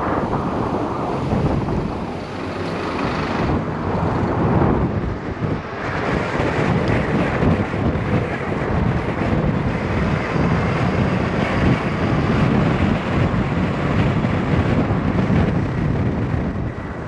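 Wind rushing over the microphone of a rider on a moving e-bike, a steady loud rush with road and traffic noise underneath.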